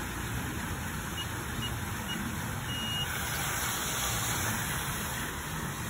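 Electronic door-entry keypad beeping: three short beeps as keys are pressed, then a longer beep about three seconds in as the code is accepted. Under it runs a steady rushing noise.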